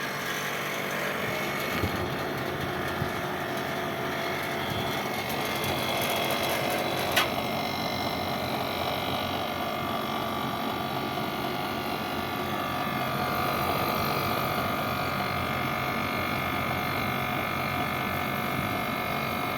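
Air-conditioning unit running with a steady hum and several constant tones, and a single sharp click about seven seconds in.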